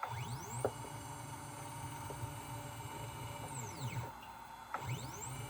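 Genmitsu 3030 CNC router's stepper motors jogging the bed along its axis: a whine that rises in pitch as the bed speeds up, holds, then falls as it slows to a stop about four seconds in, and a second move begins near the end. A sharp click comes under a second in.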